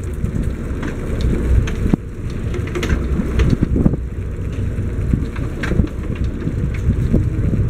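Wind buffeting the microphone on an open boat: a heavy, steady low rumble with scattered crackles and knocks.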